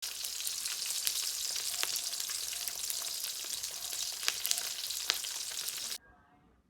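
Food frying in a pan, a steady sizzle with scattered crackles and pops; it cuts off suddenly about six seconds in.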